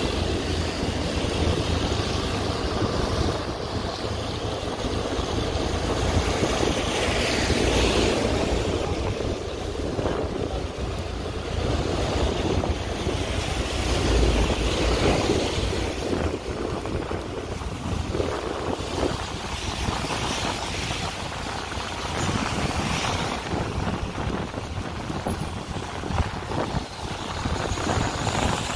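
Wind rushing over the microphone mixed with the steady rumble of a moving vehicle travelling along a rain-wet road.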